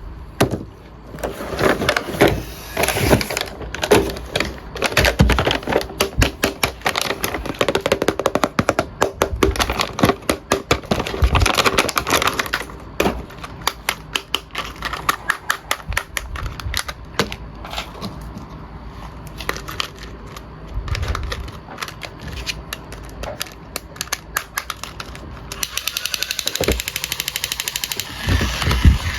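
Plastic toy and packaging being handled: quick runs of sharp clicks and rattles, densest in the first dozen seconds and sparser after.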